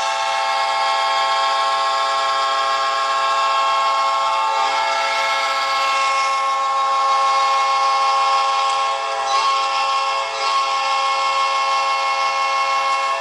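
Winnipeg Jets goal horn, a train-style air horn, sounding one long, unbroken blast: a loud, steady chord of several tones.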